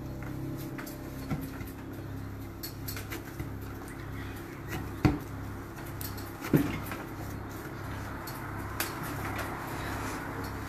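Hands kneading a stiff butter-and-flour shortbread dough on a worktable: soft pressing and rubbing with small knocks, and two louder dull thumps about five and six and a half seconds in, over a steady low hum.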